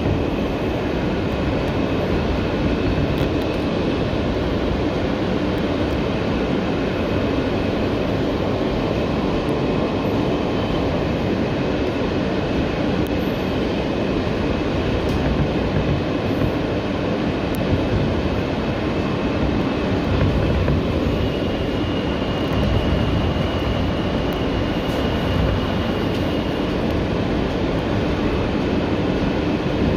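Kawasaki R160B subway train with Alstom propulsion running along the track: a steady, even rumble of wheels and running gear. A faint high steady tone comes in about twenty seconds in and fades a few seconds later.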